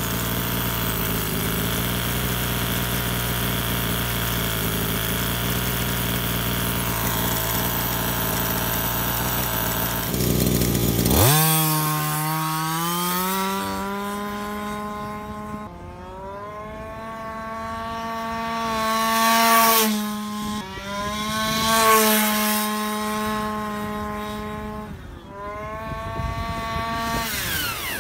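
1/5-scale gas RC car's small two-stroke engine idling steadily for about eleven seconds. It then runs at full throttle in speed runs: the pitch climbs sharply as it accelerates, holds high, and rises and falls several times, loudest twice as the car passes close. The owner finds the engine tuned very rich, topping out at only about 13,300 RPM.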